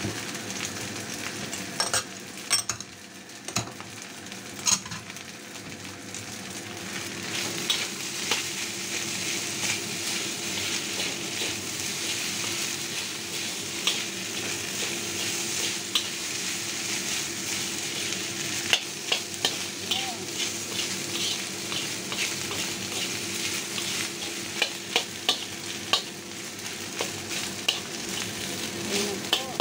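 Fried rice sizzling in a hot wok while a metal wok spatula stirs and tosses it, with frequent sharp clicks and scrapes of the spatula against the wok, coming more often in the second half.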